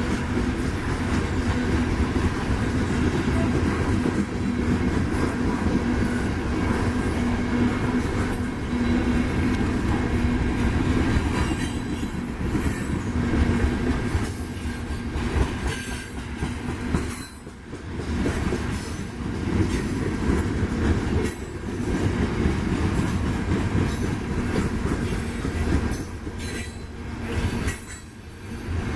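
Union Pacific freight train rolling past at close range: a steady rumble and clatter of wheels on rail, with a thin wheel squeal over it. The sound dips briefly about 17 and 28 seconds in.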